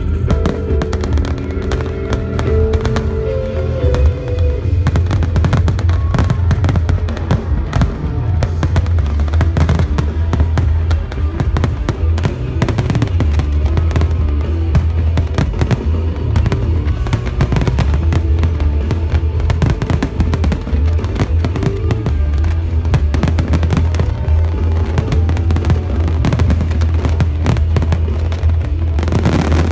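Aerial fireworks display in a dense barrage: rapid, near-continuous bangs of bursting shells with strong low booms, over music. Music with held tones is heard alone at first, and the bangs take over about four seconds in.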